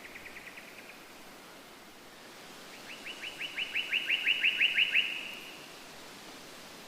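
A songbird singing a fast trill of short, repeated downward notes, about seven a second. One trill fades out about a second in, and a louder trill follows about three seconds in, swelling before it stops. A faint steady hiss lies under it.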